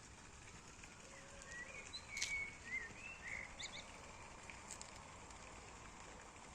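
A songbird sings a short run of whistled phrases about one and a half seconds in, over a steady faint outdoor hiss.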